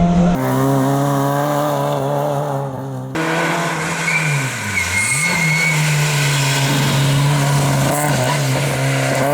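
Rally car engines at high revs on a stage, heard in several spliced clips. In one, the revs drop sharply and then climb back up, as on a lift-off or downshift before accelerating again.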